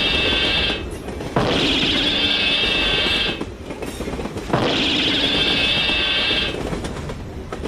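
Train horn in a railway-crossing animation, sounding three long, tone-rich blasts of about two seconds each, roughly three seconds apart.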